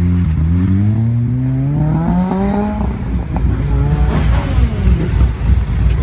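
Car engine revving, its pitch climbing steadily for nearly three seconds before it drops off, followed by a lower, rougher engine rumble.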